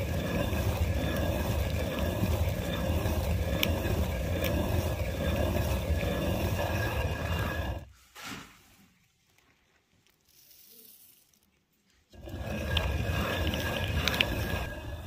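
Stone hand quern turned by its wooden handle, grinding grain into flour: a steady grating rumble of stone on stone. It breaks off for about four seconds a little past halfway, then starts again.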